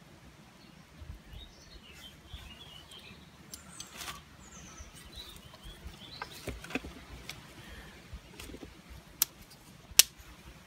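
Small birds chirping, with scattered sharp clicks and snaps from kindling being handled at a small fire. A sharp crack about ten seconds in is the loudest sound.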